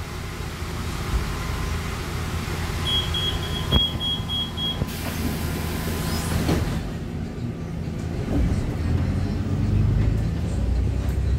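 Cabin sound of a Caio Mondego II articulated bus on a Volvo B8RLE chassis under way, its six-cylinder diesel running with a steady low drone. About three seconds in, a quick row of high beeps sounds for nearly two seconds, followed by a short burst of hiss.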